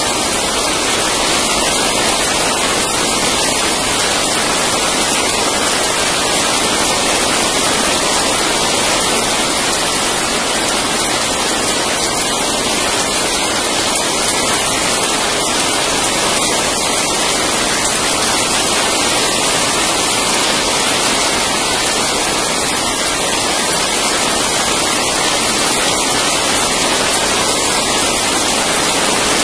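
Steady rain during a thunderstorm, an even loud hiss with no thunderclap.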